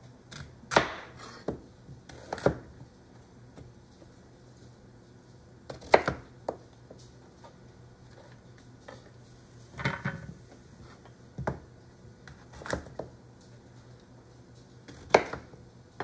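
Chef's knife cutting a chayote and knocking down onto a plastic cutting board, about nine separate chops at uneven intervals.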